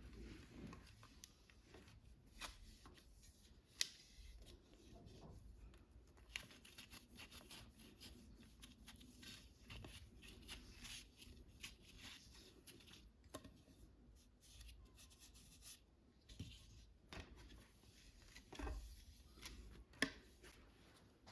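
Faint rustling and light clicks of objects being handled by hand, with a few sharper taps, the clearest about four seconds in and again near the end.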